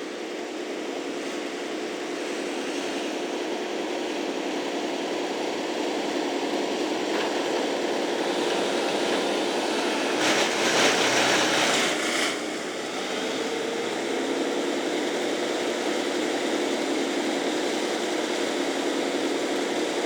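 Tree-cutting machinery engine running steadily at high revs, with a harsher grinding burst from about ten seconds in that lasts about two seconds, as wood is cut or fed; the engine note rises slightly after it.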